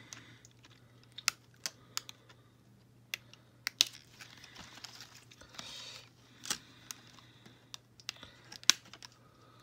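Scattered sharp clicks and snips from small red-handled nippers cutting the plastic ties and staples that hold a doll in its packaging, with short bursts of crinkling from the plastic tray. The two loudest clicks come a little under four seconds in and near the end.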